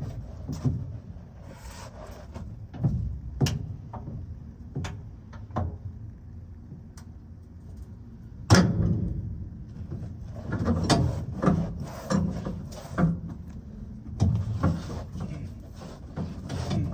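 Irregular metallic clanks and knocks from hands-on work on a pickup's underbody spare-tire hoist, with one sharp loud bang about eight and a half seconds in and a run of rattling clatter after it.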